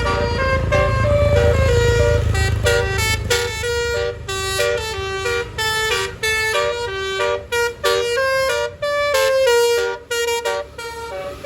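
Basuri 'telolet' multi-tone bus horn playing a fast melody of short stepped notes in several phrases, with a low engine rumble underneath during the first few seconds.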